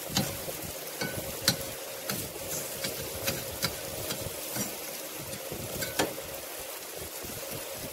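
Salmon and salmon skin sizzling on a hot grill, with scattered sharp clicks and pops through the steady sizzle; the oily skin pushed into the flame is frying.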